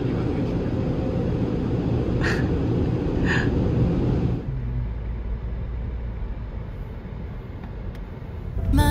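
Automatic car wash air dryers blowing hard over the car, heard from inside the cabin, with two short high-pitched sounds about two and three seconds in. About halfway through the blowing stops, leaving only the low rumble of the car driving off.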